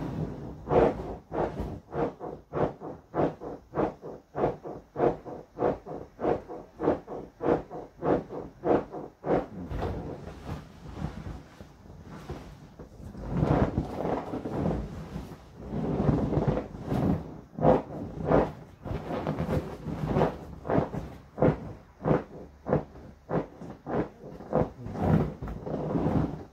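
Inflatable vinyl rocking horse squeaking and rubbing rhythmically under a bouncing rider, about two bounces a second. The bouncing eases off for a few seconds around ten seconds in, then picks up again.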